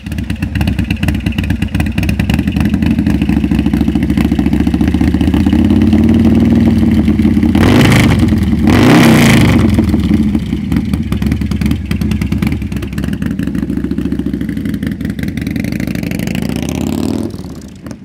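Harley-Davidson 147-cubic-inch stroker V-twin with an MHP 610 cam, running hard. Its pitch rises to the loudest point about eight or nine seconds in, where the note swoops down and back up. It then holds steadier and somewhat quieter before cutting off shortly before the end.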